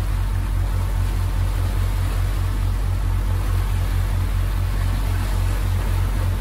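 Twin Volvo Penta TAMD70C marine diesels running at slow cruising speed, a steady low drone that pulses several times a second, with the propeller wash churning in the wake.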